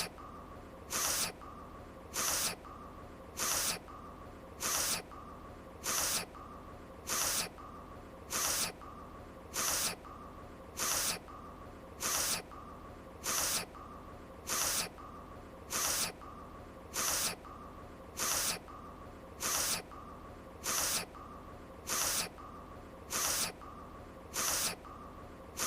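An anime character's voiced sniffle, a short nasal sniff looped to repeat evenly about every 1.2 seconds, over a steady faint hiss.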